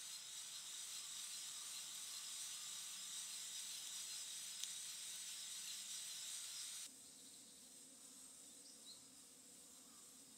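Birch-log campfire hissing steadily under a mesh coffee-bean roaster, with one sharp pop a little after halfway. About seven seconds in the hiss cuts off, leaving a quieter forest background with a steady insect buzz.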